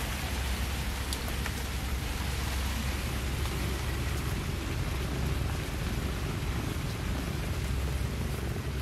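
A steady, even hiss with a low rumble underneath, unbroken throughout; no cat calls stand out.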